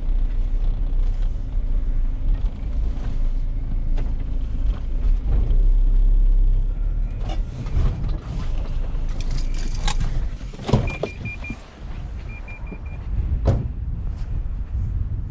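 Van driving, a heavy low engine and road rumble, with a few sharp knocks and two short runs of quick high beeps in the second half.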